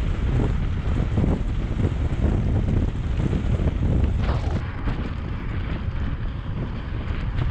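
Wind buffeting an action camera's microphone as a mountain bike rolls fast down a gravel forest track: a deep rumble of tyres and wind, with many small knocks and rattles from the rough surface. About four and a half seconds in, the high hiss thins out.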